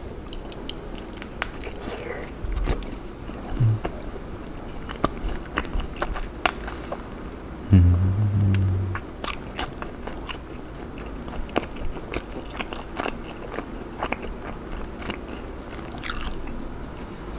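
Close-miked crunching and chewing of a crisp-battered Korean cheese corn dog, with irregular sharp crackles of the crust breaking between the teeth. About eight seconds in, the eater gives a short low closed-mouth "mmm" hum.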